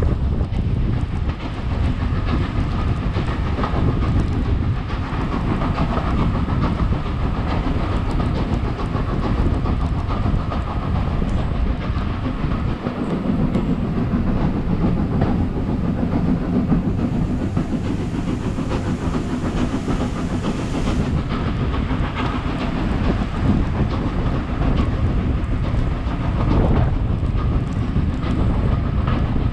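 Passenger train running along the track, heard from an open carriage window: a steady rumble with the wheels clattering over the rail joints.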